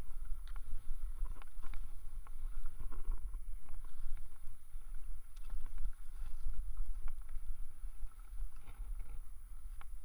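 Wind and motion buffeting the microphone as a low, uneven rumble while skiing, with scattered light clicks and scrapes of skis on snow.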